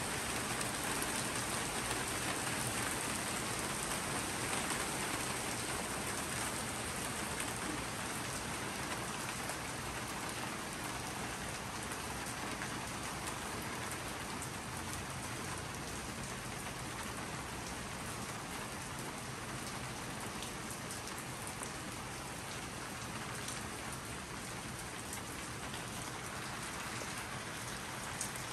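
Steady rain from a thunderstorm falling onto the surroundings, easing slightly over the half minute.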